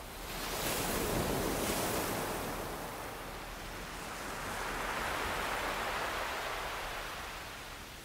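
Ocean waves washing in: two slow swells of surf noise that rise and fade, the first building about half a second in and the second around four to six seconds in.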